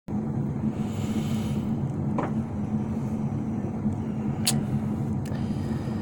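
A steady low mechanical hum, with a faint knock about two seconds in and a sharp click about four and a half seconds in.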